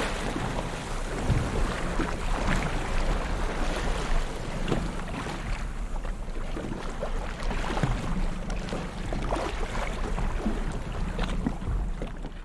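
Sea waves washing and lapping: a steady wash of water with many small splashes, over a constant low wind rumble on the microphone.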